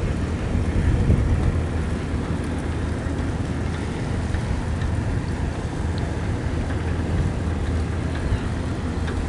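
Wind rushing over the microphone of a camera carried on a moving bicycle: a steady low rumble and hiss.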